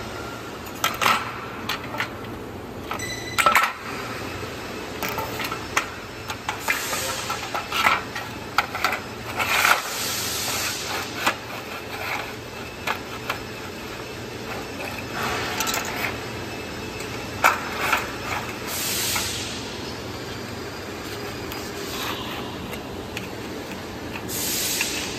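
Thin formed steel fence sheets clinking and scraping against each other as they are slid and laid out by hand, in irregular sharp knocks and short sliding hisses over a steady low hum.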